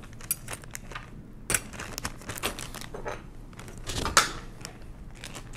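Small metal parts of a Monroe Model K mechanical calculator clicking and clattering as they are handled and set down on a tabletop. There are scattered light clicks, with sharper knocks about a second and a half in and again around four seconds in.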